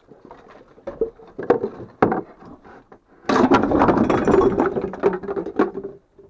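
The lid of a small round tooth-powder container being twisted off by hand in knitted work gloves: a few sharp clicks and scrapes, then a dense grinding scrape for about three seconds as the lid turns and comes free.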